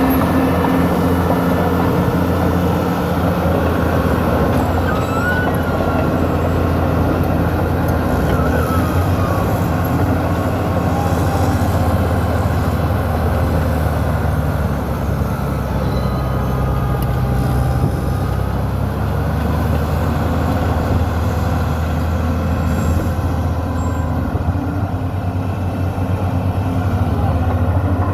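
New Holland crawler bulldozer's diesel engine running steadily, with a few brief faint high squeaks over it.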